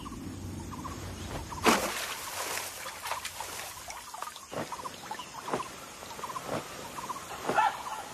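Wild animal calls: a short chirp repeated again and again, joined by a series of steeply falling calls about once a second. A loud burst of noise comes in just under two seconds in and lasts a couple of seconds.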